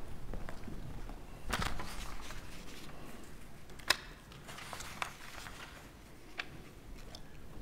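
Shuffling footsteps, rustling and small knocks as a few people walk across and sit down in wooden pews, with a single sharp click a little under four seconds in.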